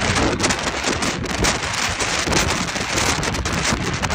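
Typhoon-force wind gusting hard and buffeting the microphone, a loud rushing roar that rises and falls with each gust.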